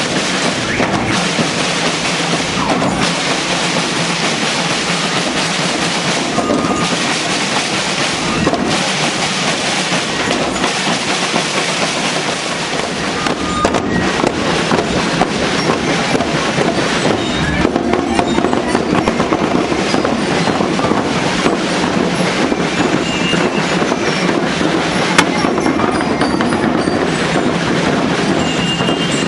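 School marching band drums, snare and bass drums, playing a continuous march beat, loud and dense throughout.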